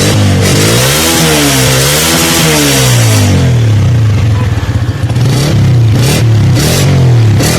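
Chinese CG125-type 125 cc single-cylinder four-stroke motorcycle engine being revved: its pitch rises and falls several times, drops back briefly about halfway through, then picks up again with short blips of the throttle near the end.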